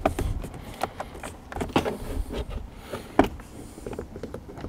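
2015 Jeep Grand Cherokee's plastic inner door trim panel knocking and clicking as it is tugged and rocked by hand, a string of irregular sharp knocks. The panel is still held by hidden trim clips along its top edge.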